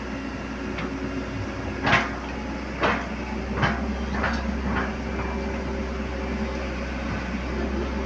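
Excavator diesel engine running steadily, with a run of five sharp knocks from about two to five seconds in, the first the loudest.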